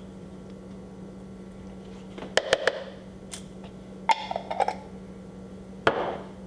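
Short, sharp knocks and clicks of a kitchen utensil against a container, in small clusters about two, four and six seconds in, as seasoning is added to raw ground beef.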